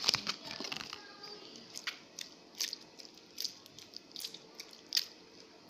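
Homemade slime being squeezed and kneaded by hand, giving short wet clicks and squelches. The sounds come close together in the first second, then turn into single pops spread unevenly through the rest.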